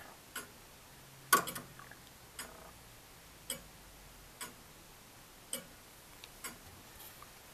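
A 1690 William Clement thirty-hour longcase clock with an anchor escapement, ticking with its hood fitted. The ticks come about once a second, and one about a second in is louder than the rest.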